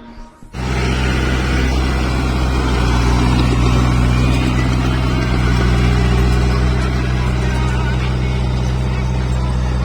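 Kubota rice combine harvester running steadily: the diesel engine's even hum under a broad mechanical noise, cutting in abruptly about half a second in.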